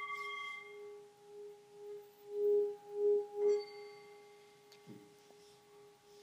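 Tibetan singing bowl ringing with a low, wavering tone. It swells louder three times about halfway through, with a light strike at the same point that brings back its higher ringing tones, before it fades.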